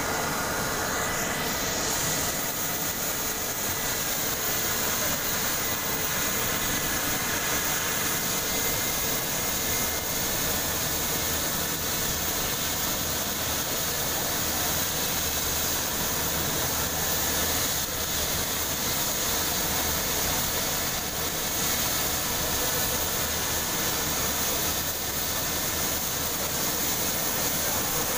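Helicopter turbine engine running with the helicopter parked on the ground: a steady high whine with the rotor's rush beneath it, level and unchanging.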